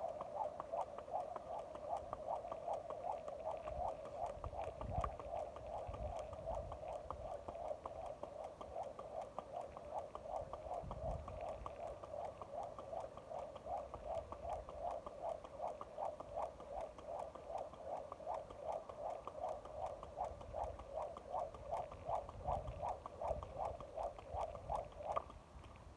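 A jump rope being skipped continuously, making a steady rhythmic beat a little over twice a second, one beat per turn of the rope. It stops shortly before the end.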